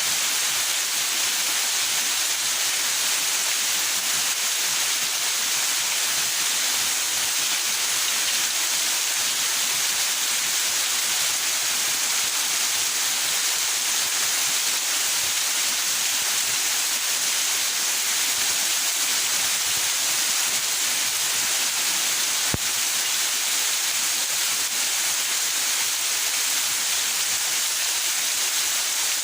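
Steady rain falling in a backyard, an even hiss that doesn't change. A single sharp click sounds about two-thirds of the way through.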